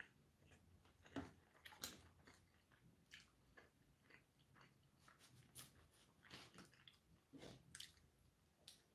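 Faint eating sounds from a person eating a burger out of its paper wrapper: soft chewing with scattered small clicks and rustles.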